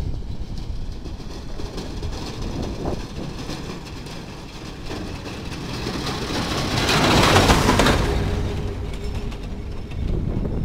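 An oncoming snowplow truck passes close by. Its engine and rush of air and snow swell to a peak about seven seconds in, then fade. Underneath runs the car's own steady road and wind noise.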